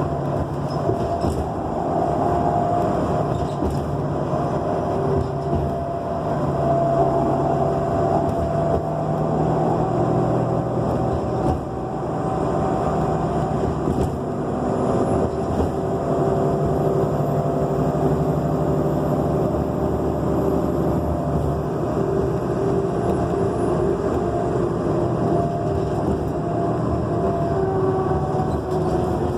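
Nova Bus LFS Artic articulated city bus underway, heard on board: steady engine and road noise with a continuous whining tone, the loud screeching noise this bus makes. Midway a faint very high tone rises and then falls away.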